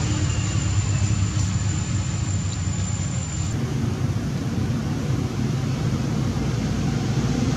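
Steady low rumble and hiss of outdoor background noise, with a faint thin high tone that stops about three and a half seconds in.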